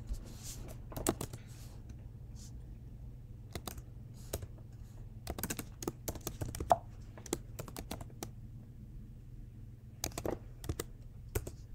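Keystrokes on a computer keyboard: short bursts of typing with pauses between them, over a faint low hum.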